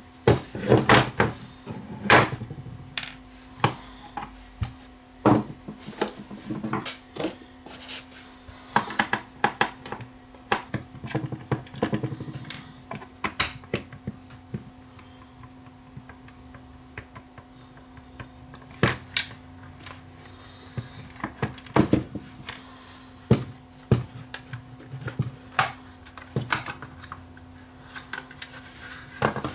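Irregular plastic clicks, taps and knocks of a handheld digital multimeter's case being taken apart: a screwdriver working screws out of the back, small screws and tools set down on the bench, and the case halves pulled apart. A faint steady hum runs underneath.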